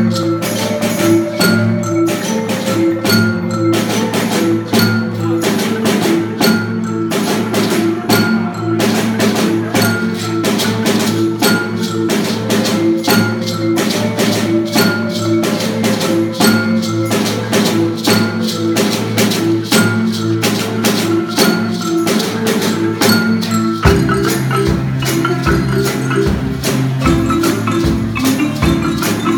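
Marimba ensemble playing a rhythmic, repeating groove, many wooden bars struck with mallets in a steady beat. About 24 seconds in, a deeper bass part joins and the pattern changes.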